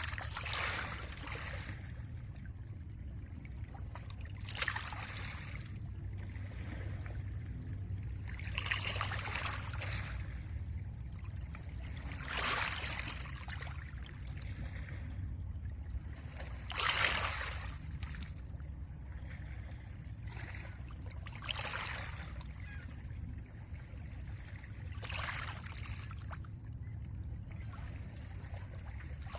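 Small lake waves washing onto a pebble shore, one hissing break about every four seconds, over a steady low rumble.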